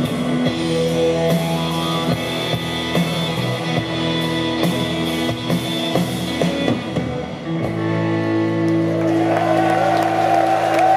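Live rock band, with electric guitars, bass guitar and drum kit, playing the end of a song. About seven seconds in, the drumming stops and a final chord is held ringing, with a high sustained guitar note rising over it.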